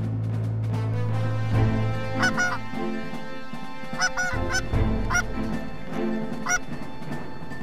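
Geese honking: short, clipped honks and clucks, bunched about two and four seconds in, then single honks, over faint background music.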